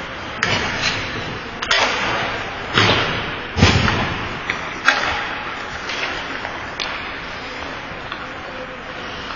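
Ice hockey play in an indoor rink: a string of sharp knocks and thuds from sticks and puck on ice and boards, about one a second over the first seven seconds, each echoing in the arena, the loudest a heavy thud near the middle. Under them runs a steady hiss of skates on the ice.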